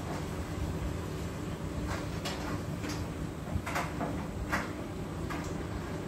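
A steady low hum with a handful of light clicks and knocks scattered through the middle, the sharpest two coming close together around two-thirds of the way through, typical of kitchen handling noise.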